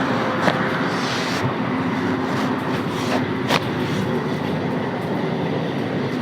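Steady rushing background noise with a faint hum, broken by a sharp click about half a second in and two more clicks a little after three seconds.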